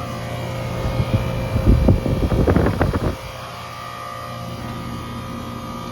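Steady mechanical hum of a LuxAire/York central air conditioner's outdoor condensing unit running, its reciprocating compressor droning. Between about one and three seconds in, a loud low rumble covers it for a couple of seconds.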